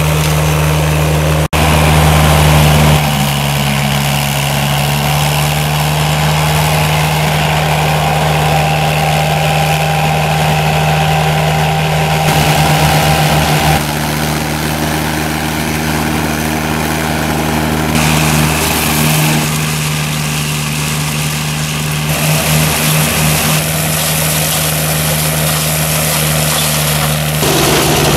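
Engine of a remote-controlled tracked flail mulcher running steadily while the flail rotor cuts grass and brush. The sound changes abruptly several times as clips of different mowing passes are cut together.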